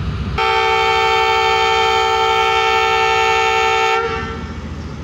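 Air horn of a ZCU-30 diesel-electric locomotive sounding one long steady blast, signalling its departure, over the low rumble of its diesel engine. The horn starts about half a second in and dies away about four seconds in, leaving the engine rumble.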